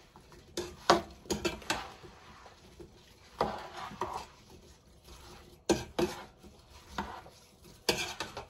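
A spoon stirring sliced apples in a sugar and cinnamon mix in a pot, knocking and scraping against the pot in short spells every second or two while the apple pie filling is mixed.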